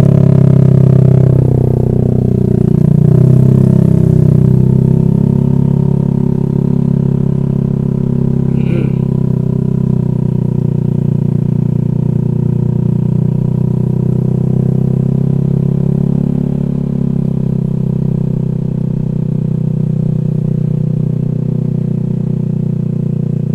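Honda Vario scooter's single-cylinder engine under way, its pitch shifting as it accelerates in the first few seconds, then running at a steady cruising speed.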